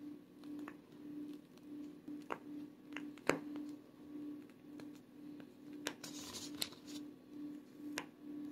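Faint kitchen room tone: a low hum that pulses about one and a half times a second, with a few light clicks and taps while whipped topping is piped from a bag onto a pie. The loudest click comes about three seconds in.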